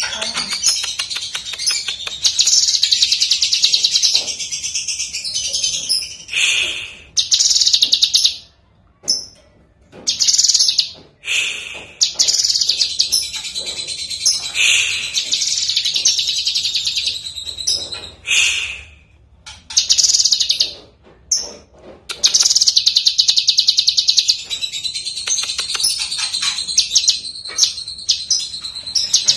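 Blue-masked leafbird (cucak kinoi) singing a loud, fast, high song of rapid trills and chattering phrases, broken by several short pauses.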